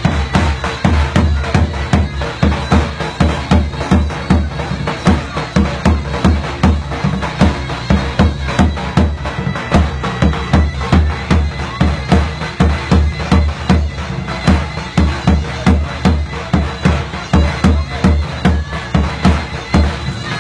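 Davul and zurna playing a Bitlis folk dance tune: the zurna's loud reedy melody over a steady bass-drum beat of about two strokes a second.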